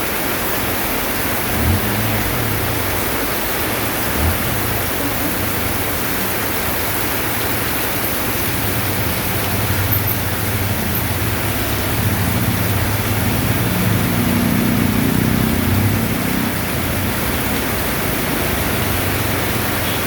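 Heavy rain falling steadily, a dense even hiss. A low rumble runs underneath and swells about two-thirds of the way through, with two soft thumps in the first few seconds.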